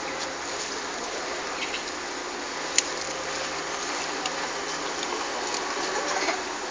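Steady rushing background noise, with a single sharp click a little under three seconds in.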